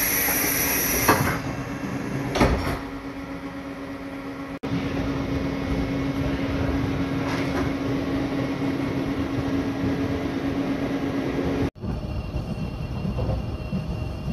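Sounds aboard a JR East 651 series electric limited express train: a high electronic tone for about the first second and two knocks at the open vestibule door, then a steady hum, then the train running on the rails.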